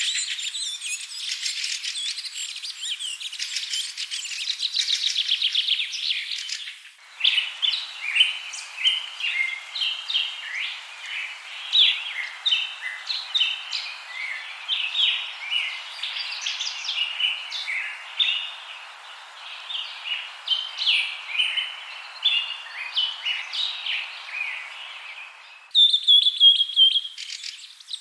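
Birds chirping and trilling in three abruptly changing stretches: fast rapid trills for the first seven seconds, then a busy run of short chirps over a steady hiss, then a high repeated call near the end.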